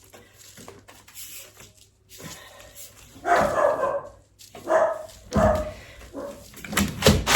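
A dog barking several times in short calls, starting about three seconds in.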